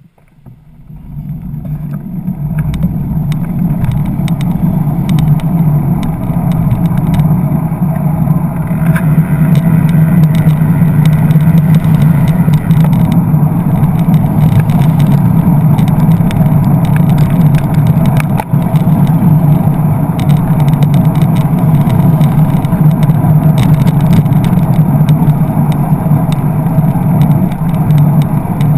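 Steady rumble of wind and road noise on a bicycle-mounted camera riding through slow traffic, with the sound of cars around it and scattered small rattles; it fades in over the first two seconds.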